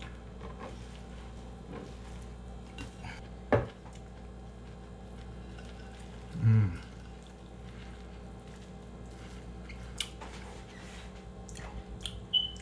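Quiet handling of food and a ceramic plate on a plastic cutting board over a steady low hum: one sharp knock about a third of the way in, a few lighter clicks later, and a brief hum of a man's voice near the middle.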